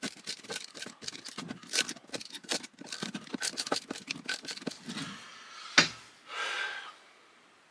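Hand cutters snipping and clicking rapidly as copper windings are cut and worked off a small fan motor's stator. A single sharp snap comes just before six seconds in, followed by a short rustle.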